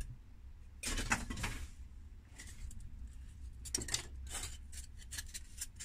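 Handling noise from polystyrene foam tractor parts being picked up and moved about on a wooden workbench: a few soft rustles and light taps, about a second in and again around two and a half and four seconds in.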